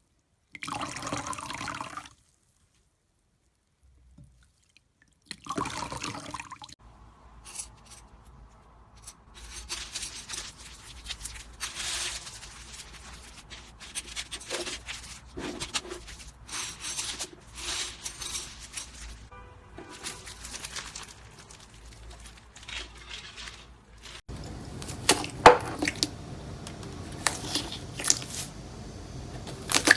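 Slime being squeezed, stretched and poked by hand: wet squishing with sticky crackling and popping, in short takes. About three quarters through it cuts to louder, sharper crackles and pops.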